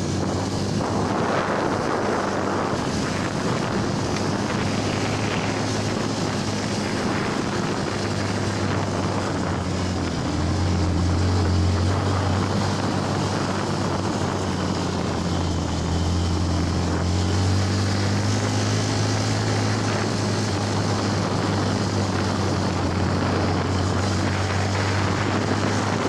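Yamaha WR125R's single-cylinder four-stroke engine running steadily as the motorcycle rides over a gravel track, with its note swelling a little with the throttle now and then. Tyre and wind noise run underneath.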